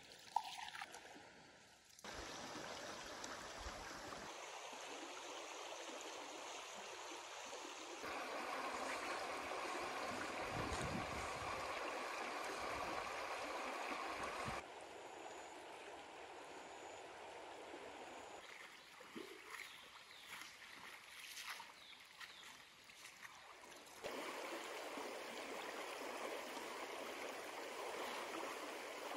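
Stream water running over stones in a series of cut shots, so the rushing sound shifts abruptly in level and tone every few seconds. A single sharp knock right at the start.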